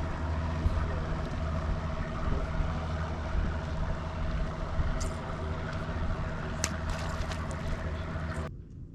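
Boat motor running steadily under water and hull noise, with a couple of sharp clicks about five and six and a half seconds in; the sound cuts off abruptly near the end, leaving a low rumble.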